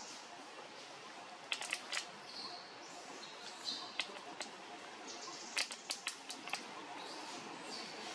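Sharp clicks and snaps of thin twigs as a baby macaque climbs and pulls at them, in a few short clusters: one about a second and a half in, a pair near four seconds, and a run about two-thirds of the way through. High chirping runs in the background.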